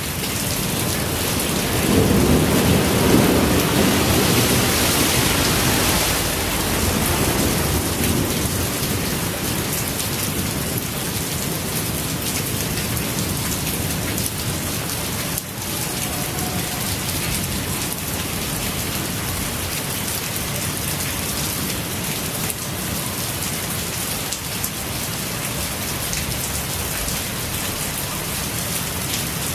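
Torrential rain pouring steadily onto pavement, standing water and leaves. A few seconds in it swells louder for several seconds, with a deeper low rumble underneath.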